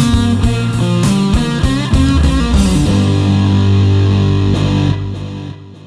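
Electric guitar through a G.P. Electronics IC130 MK2 solid-state amp, with added delay and reverb, playing over a rock backing track with drums. The drums stop about two and a half seconds in, and a final chord rings on, fading away near the end.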